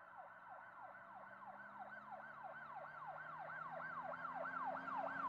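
Electronic emergency-vehicle siren in a fast yelp, about three sweeps a second, each dropping sharply in pitch. It starts faint and grows steadily louder, with a low steady drone underneath.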